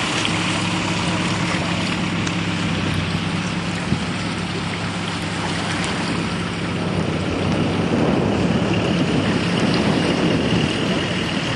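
Land Rover engine running steadily. From about eight seconds in a louder rushing noise joins it.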